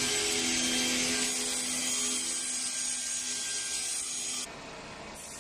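CNC 32TA sliding panel saw's circular blade cutting through a wood panel: a steady high whine over a dense sawing hiss. The cutting noise stops abruptly near the end, leaving a quieter machine run.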